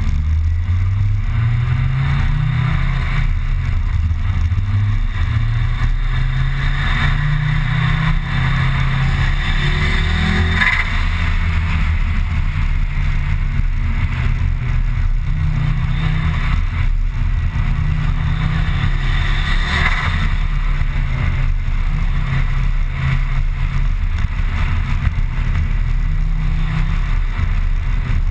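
Car engine and road noise heard from inside a moving car's cabin. The engine note climbs and drops several times as the car accelerates and changes gear, over a steady low rumble and tyre hiss.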